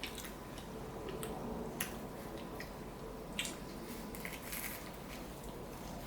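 Close-up mouth sounds of chewing a sandwich: soft, wet clicks and smacks, with two sharper clicks about two and three and a half seconds in.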